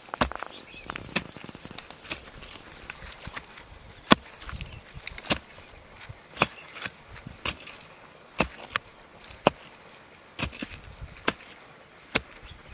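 A small garden hand tool chopping and scraping into gritty soil to fill in a planting hole. Sharp knocks come irregularly, about one a second, with a soft rustle of loose soil near the start.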